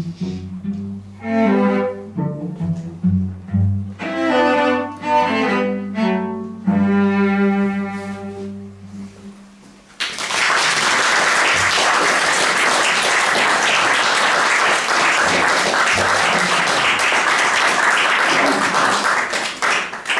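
Two cellos playing a duet, the last note fading out about nine seconds in. Then the audience applauds steadily for about ten seconds.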